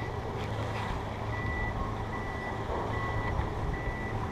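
A high electronic beep repeating a little more than once a second, like a reversing alarm, over the steady rumble of skis sliding on snow and wind on the microphone.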